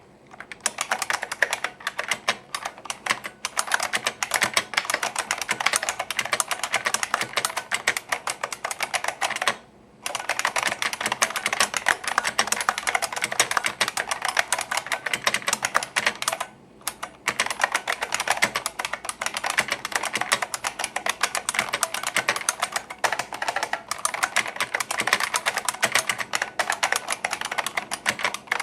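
IBM Model M keyboard's buckling-spring switches clicking under fast continuous typing, dense loud clicks with two brief pauses, about a third of the way in and past halfway.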